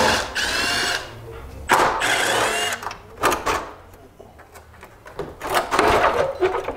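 Cordless drill running in two short bursts of about a second each, its motor whine sliding in pitch as it backs out the fender's 10 mm bolts. A few knocks and rattles follow.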